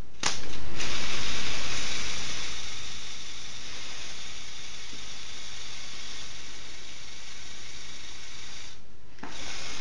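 Lego Technic excavator's small electric motors whirring through its plastic gears as the remote-controlled boom and arm move. The whirr stops briefly near the end.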